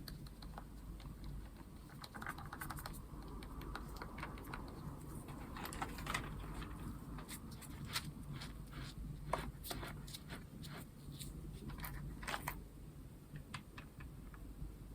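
Keys being pressed on a Logitech G915 low-profile keyboard with GL Tactile switches: quiet, irregular key clicks as in typing, thinning out near the end.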